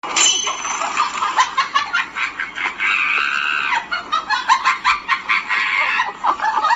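A dense, irregular run of short animal calls, many a second, that starts suddenly and cuts off abruptly.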